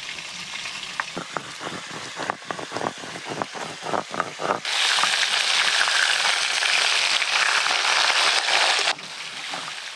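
Stone grinding slab and muller (shil-nora) worked back and forth over mustard, poppy seed and green chilli, giving a run of sharp stone-on-stone clicks. About five seconds in, rui fish pieces start frying in oil in an iron kadai with a loud, steady sizzle, which cuts off suddenly near the end.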